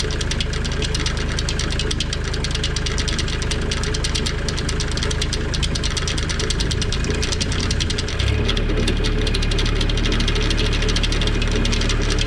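Kubota L2502 tractor's three-cylinder diesel engine running with a steady clatter while the newly hooked-up rotary tiller is tried out for the first time. About eight seconds in, the engine note changes and gets slightly louder.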